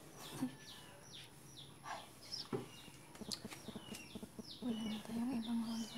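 Small birds chirping over and over, short falling chirps close together, with a few light knocks and clatters of things being handled. Near the end a low steady hum, like a person humming one note, holds for about a second and a half.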